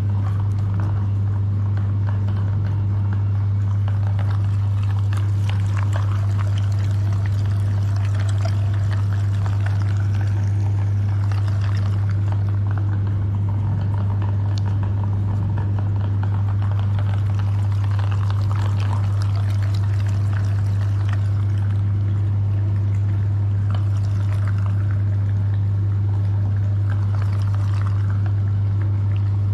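Electric meat grinder running with a steady low hum, with wet squishing and pouring sounds as jelly is forced through it.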